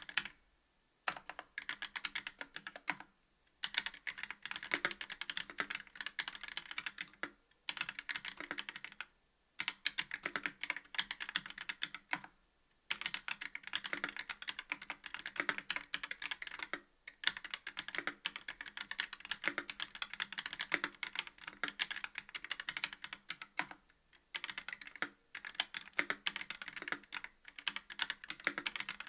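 Continuous typing on a KBD67 V2 MKII mechanical keyboard with YOK Trash Panda linear switches, a brass plate and GMK keycaps. The keystrokes come in quick runs broken by brief pauses every few seconds.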